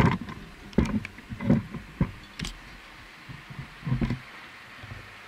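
Irregular low thumps and knocks on the camera microphone: several in the first two and a half seconds, one more about four seconds in, then a steady faint hiss.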